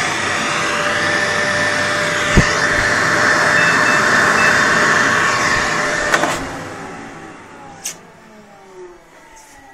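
Wall-mounted hair dryer blowing steadily with a faint whine. About six seconds in it clicks and its fan winds down to quiet.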